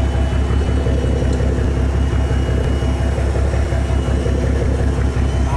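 A fishing boat's engine running steadily, a low drone, with a faint steady high whine above it.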